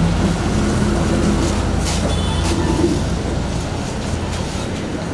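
Steady low rumble of road traffic, with a short high tone a little past two seconds in.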